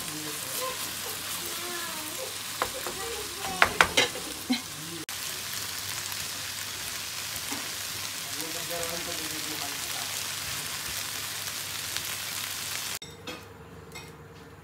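Stir-fried instant noodles with vegetables and chicken sizzling in a hot wok as they are stirred with a wooden spatula. A few sharp knocks of the spatula against the pan come about three to four seconds in. The sizzling cuts off abruptly near the end.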